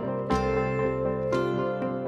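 Instrumental background music: sustained notes over a bass line, with a new note or chord struck about once a second.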